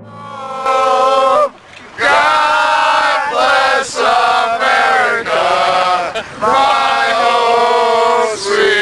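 A group of men chanting loudly together in long, drawn-out shouted syllables with short breaks between them.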